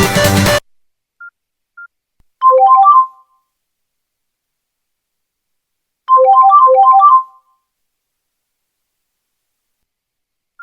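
Nokia N95 ringtone: a short phrase of quick, bright electronic notes played twice, about four seconds apart, the second slightly longer. Before it, an electronic dance-style ringtone cuts off suddenly just after the start, and a few faint short beeps fall in the gaps.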